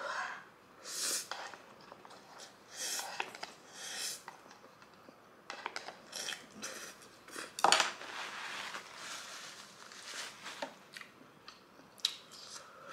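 A person eating instant noodles: several short slurping and chewing bursts in the first few seconds, then quieter sipping and mouth sounds. A sharp knock against a dish, the loudest sound, comes about eight seconds in.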